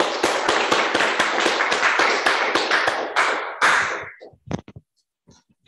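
Audience applauding, the clapping fading away about four seconds in, followed by a few scattered taps.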